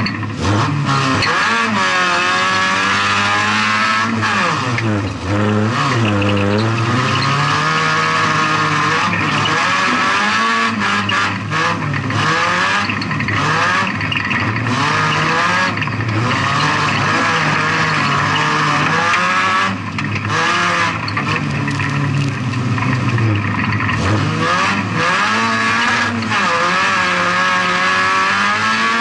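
VW Polo 16V's 1.4-litre four-cylinder engine at racing revs, heard from inside the stripped cabin, the revs repeatedly climbing and falling as the driver lifts and gets back on the throttle, with brief drops about five seconds in and again near twenty seconds.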